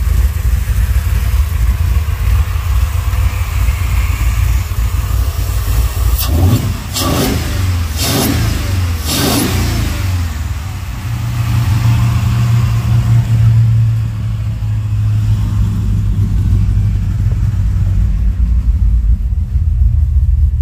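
Freshly swapped 8.1-litre Vortec 8100 big-block V8 running steadily in the truck after its engine swap, with a few quick sweeping sounds around the middle and a louder, deeper hum for a few seconds after.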